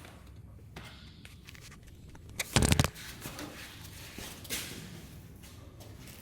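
Rustling and small handling clicks, with a short burst of clattering knocks about two and a half seconds in.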